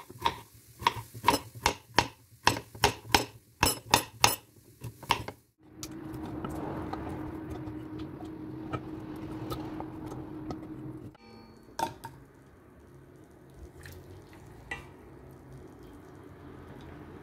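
Kitchen knife chopping a sweet potato on a wooden cutting board: about a dozen sharp chops, two to three a second, stopping after about five seconds. A steady rushing noise with a low hum follows for about five seconds, then a few scattered clinks over a quieter background.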